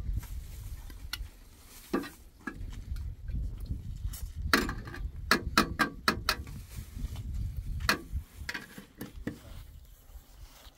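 Irregular knocks and clinks of hard objects handled against one another, with a quick cluster of sharp clicks about four to six seconds in, over a low rumble.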